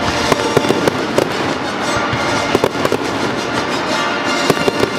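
Aerial fireworks bursting and crackling in a dense, continuous run of sharp pops and cracks, with music underneath.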